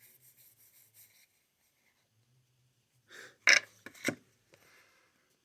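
Trading cards rubbing and sliding against each other in the hand, a faint quick rustle that stops about a second in. About three and a half seconds in come two short, sharp, louder sounds close to the microphone.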